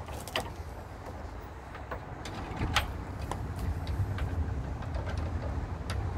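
A steady low rumble with scattered light knocks and clicks of parts being handled on a fairground ride's tram frame, the sharpest nearly three seconds in.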